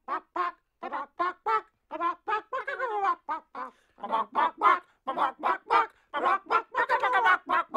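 Rapid string of short clucking calls, about three or four a second, like a chicken.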